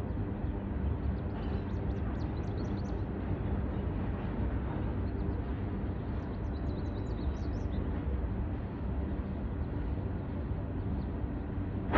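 Freight train rolling slowly past as it slows down, a steady low rumble of wheels on rails with faint high squeaks now and then.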